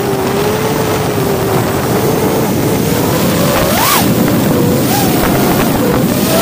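FPV quadcopter's motors and propellers whining, the pitch sliding down and then up with the throttle and jumping sharply for a moment about four seconds in, under loud wind rush on the onboard camera's microphone.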